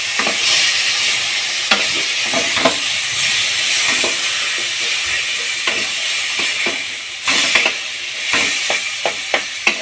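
Papaya and mango pieces sizzling in hot oil in a kadai, with a steady frying hiss. A wooden spatula stirring them scrapes and knocks against the pan, more often in the second half.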